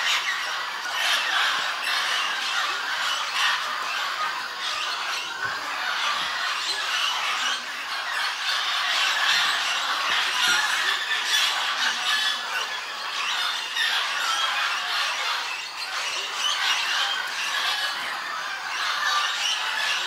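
A large mixed flock of parrots, mostly mealy amazons, squawking and chattering without pause, many harsh calls overlapping into one dense din.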